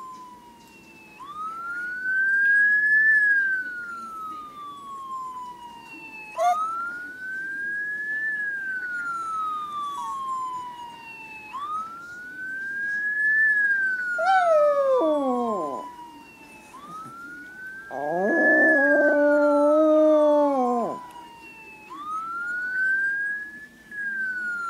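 Siren wailing in slow cycles, each rising for about two seconds and falling for about three, repeating roughly every five seconds. A small dog howls along with it: a short falling howl about fourteen seconds in, then a longer, louder howl from about eighteen seconds in that holds its pitch for a couple of seconds before dropping away.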